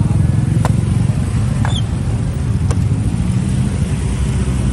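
Steady low rumble of an engine running close by, with three light clicks or knocks about a second apart.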